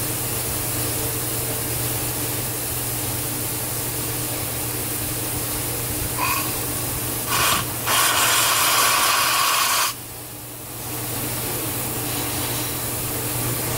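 Steam hissing steadily through the outlet of a Dunham No. 1 thermostatic steam trap that is slow to seal shut, with short spurts about six and seven seconds in and a louder two-second rush that cuts off abruptly about ten seconds in.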